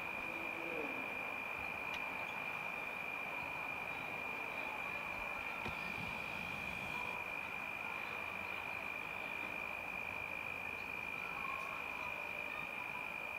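A steady, unbroken high-pitched insect trill with a light hiss behind it.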